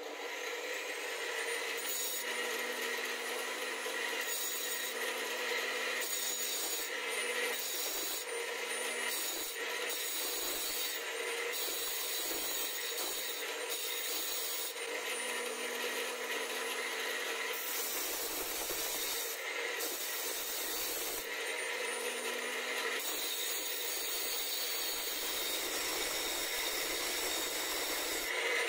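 Angle grinder mounted in a sharpening stand switches on and runs with a steady motor whine. A twist drill bit held in a wooden jig is ground against its disc, giving a rasping grinding noise that comes and goes every second or two as the bit is pressed to the disc and eased off.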